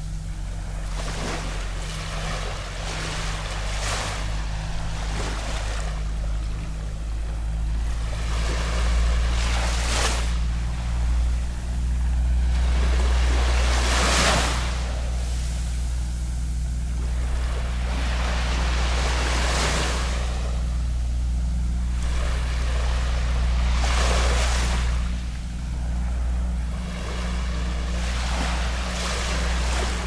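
Small waves lapping and washing onto a beach, a soft surge about every four to five seconds, over a steady low rumble.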